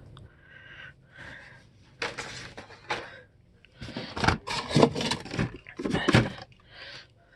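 Packaged toy cars being handled and set down: plastic packaging rustling, with scattered clacks and knocks, most of them and the loudest between about four and six seconds in.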